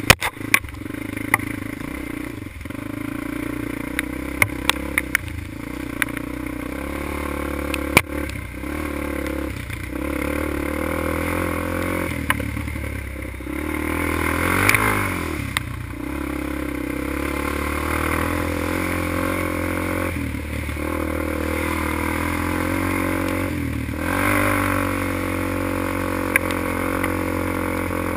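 Quad (ATV) engine running and revving up and down while riding a rough, wet trail, with sharp clicks and clatter from the bumps, heaviest in the first third. About halfway through the engine swells louder as the quad runs through a muddy puddle.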